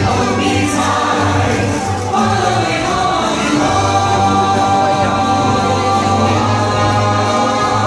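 A holiday show song: a choir of voices singing a Christmas number over instrumental accompaniment, carrying on without a break.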